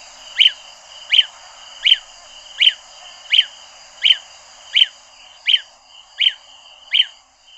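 Lesser honeyguide calling: a long, even series of short whistled notes, about one and a half a second, each dropping at the end, over the steady hiss of a field recording.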